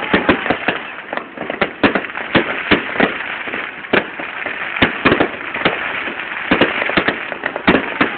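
Fireworks display: a fast, irregular run of sharp bangs, a few each second, with constant crackling between them.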